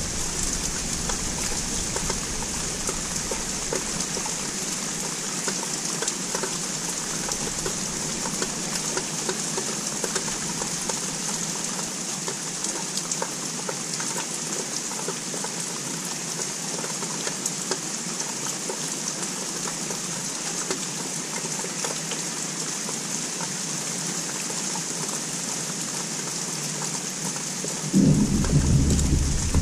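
Steady rain falling, with many single drops ticking close by. Near the end a sudden low rumble of distant thunder comes in and is the loudest sound.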